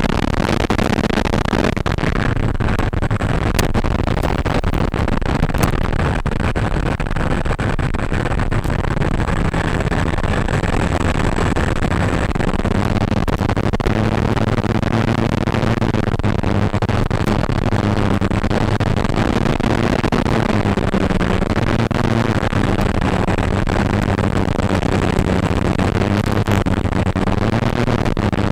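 Onboard sound of a foam RC RV-8 model airplane in flight: its motor and propeller drone steadily, the pitch wandering up and down with throttle, under a constant noisy hiss.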